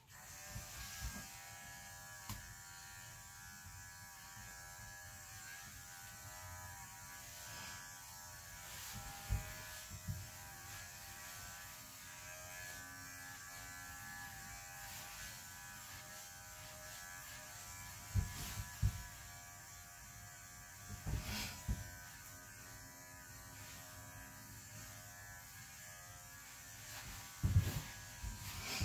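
Electric dog clippers switched on and running steadily while clipping an Airedale's coat, with a few sharp knocks along the way.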